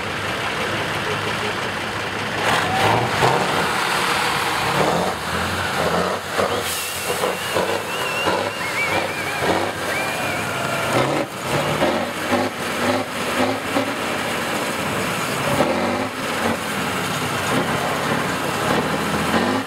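Eight-wheeled trial truck's engine running under load and revving up and down as it crawls over a dirt mound, with scattered knocks.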